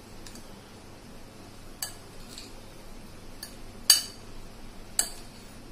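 A glass mixing bowl clinking as vegetables and spices are mixed in it by hand: a few sharp, separate clinks, the loudest about four seconds in.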